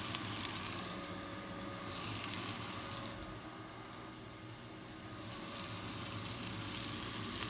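Bluefish pieces sizzling in butter in a nonstick frying pan, a steady frying hiss that swells and eases slightly.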